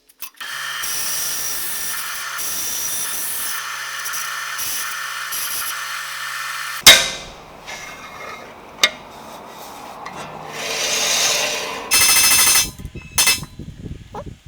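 Workshop tool work: a power tool runs steadily for about six seconds, then a loud sharp knock is followed by scattered scraping and handling sounds, and a short harsh burst comes near the end.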